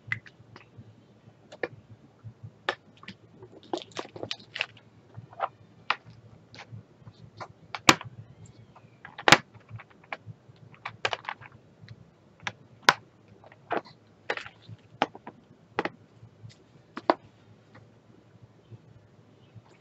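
Irregular small plastic clicks and taps from handling diamond-painting drill storage: lids of small plastic bottles snapping and bottles knocking in a clear plastic organizer case, with two louder snaps near the middle.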